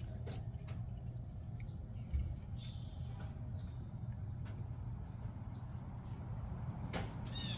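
Birds chirping: a short falling call repeated about once a second over steady low background noise, with a few light taps. Near the end a louder run of bird calls begins.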